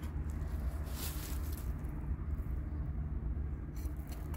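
Kubey 269 knife blade shaving fine curls off a eucalyptus stick to make a feather stick: a scraping stroke about a second in and a few sharp clicks near the end, over a steady low hum.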